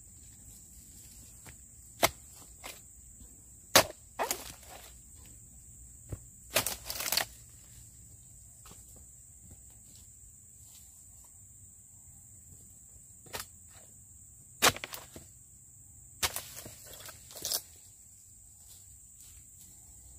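Oil palm harvesting chisel (dodos) chopping and prying at the fruit-bunch stalks and frond bases of a low palm: scattered sharp chops, some in quick clusters, with rustling. A steady high-pitched insect drone runs underneath.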